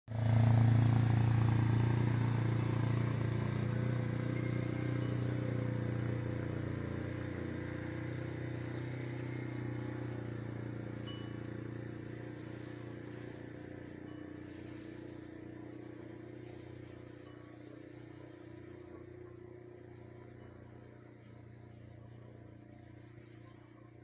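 Engine running with a steady low hum that fades gradually.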